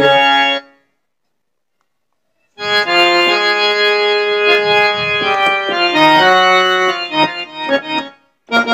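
Harmonium playing a short melodic phrase of held reed notes, a demonstration of an instrumental fill between sung lines. It comes in about two and a half seconds in after a short silence, and ends in a few short separate notes; a held note dies away at the very start.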